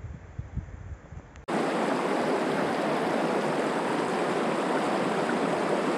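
River water rushing over rocks: a steady flowing noise that starts abruptly about a second and a half in.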